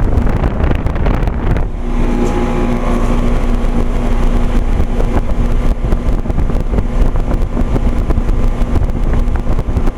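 A 2009 Trane XL15i 3.5-ton heat pump's outdoor unit running in heat mode: its Climatuff compressor humming steadily under the whoosh of the outdoor fan, the hum growing stronger about two seconds in.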